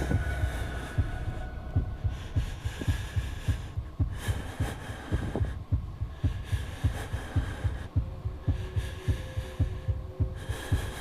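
A heartbeat sound effect: a steady pulse of low thumps, about two a second, over a faint sustained drone, used to build tension while the unexploded shell is being handled.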